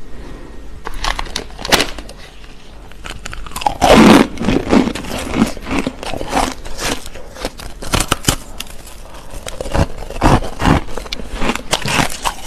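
Close-miked biting and chewing of a ball of packed crushed ice: a string of sharp crunches and crackles, with the loudest bite about four seconds in.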